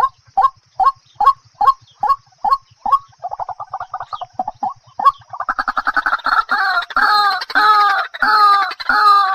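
A fowl-like bird calling over and over: short clipped calls two or three a second, a fast stuttering run about three seconds in, then longer, louder calls about twice a second from about halfway.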